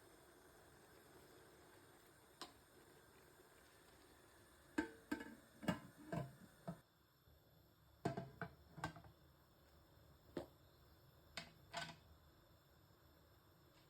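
A quiet series of light, sharp knocks and clicks, bunched into quick clusters about five and eight seconds in, with a few single ones between.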